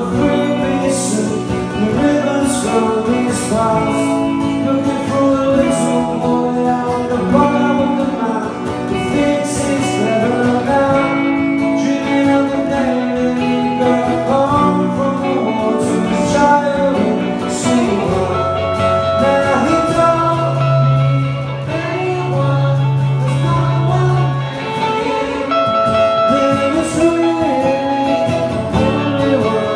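A male singer performs a song live, accompanying himself on a strummed acoustic guitar.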